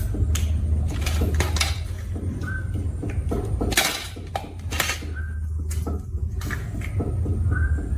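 Repeated clinks and clatters of small hard objects being handled, over a steady low hum.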